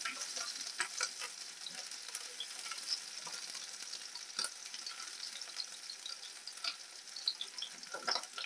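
Sliced shallots and garlic frying in oil in a nonstick pan: a steady sizzling hiss with scattered crackles and pops, plus the scrape and tap of a wooden spatula stirring them. The flame is too high.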